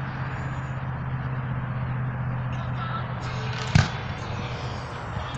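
A firework shell launched from its mortar: one sharp thump about three-quarters of the way in, over a steady low hum, in a lull between bursts.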